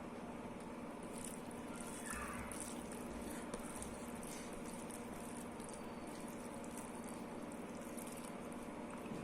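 Soft wet squishing and lip-smacking of dal and rice being eaten, with scattered small clicks, over a steady background hum.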